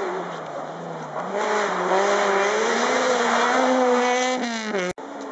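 Rally car passing at full throttle, its engine held at high revs for a few seconds. Near the end the engine note falls steeply, then the sound cuts off abruptly.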